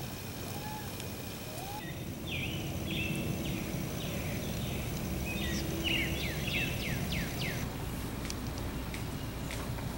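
Outdoor farm ambience: steady background noise with small birds chirping, faint at first, then a run of short, quickly falling chirps from about two seconds in until near the end.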